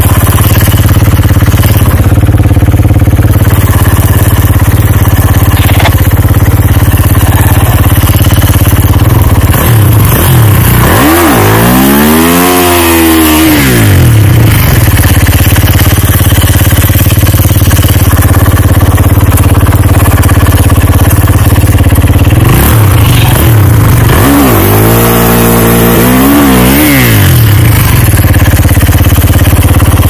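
Kawasaki KX snowbike's engine running steadily at idle while the bike sits bogged down in deep snow, revved up and down once about a third of the way in, then again with several quick blips later on.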